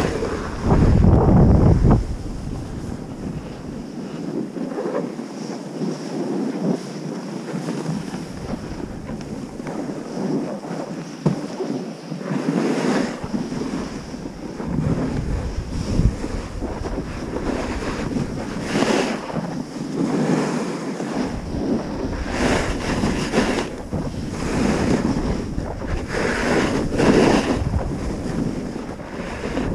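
Wind buffeting the microphone of a camera riding down a groomed snow run, over a steady hiss of sliding on snow. Several times the hiss swells into a harder scrape as edges bite the snow through turns.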